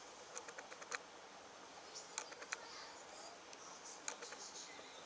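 Faint, irregular light clicks and taps, a few sharper ones standing out, over a low steady hiss.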